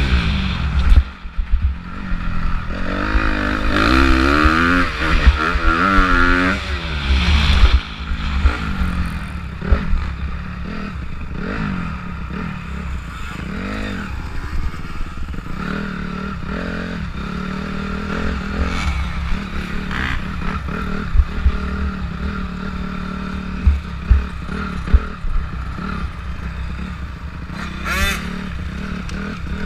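Honda CRF250R single-cylinder four-stroke dirt bike engine heard from the rider's helmet. For about the first eight seconds it revs hard, pitch climbing and dropping with each throttle change. It then settles to lower, more even revs with occasional blips, over a clatter of the bike on the dirt.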